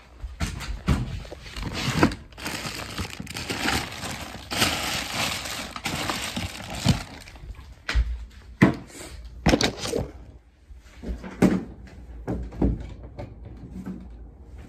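Scattered knocks and thumps with rustling, from things being handled and moved close to the phone's microphone.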